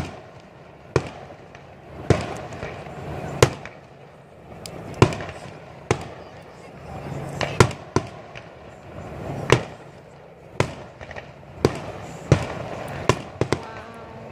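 Aerial fireworks bursting: about a dozen sharp bangs at irregular intervals, roughly one a second.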